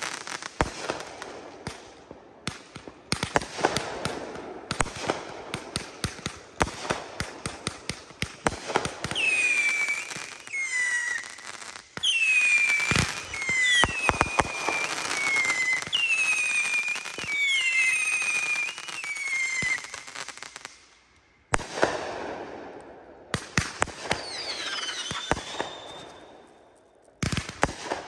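Consumer aerial fireworks firing: rapid pops, bangs and crackling. From about nine seconds in comes a run of whistles, each falling in pitch, about one a second, with bangs among them. After a short lull come more bangs and whistles.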